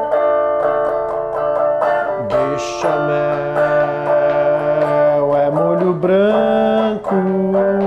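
Music: a strummed plucked-string instrument keeping a steady rhythm under long held melody notes, which bend in pitch about two-thirds of the way through.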